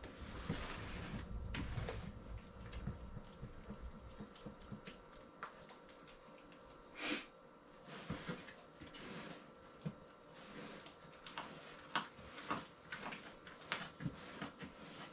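A spoon stirring a thick mash of cooked soybeans, salt and koji in a bowl: faint scraping and stirring with scattered clicks of the spoon against the bowl, and one sharper knock about seven seconds in.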